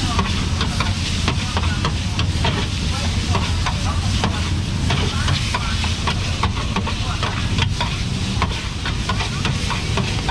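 Busy food-market din: many quick clicks and clatters like utensils and dishes, over a constant low rumble and hiss, with faint voices.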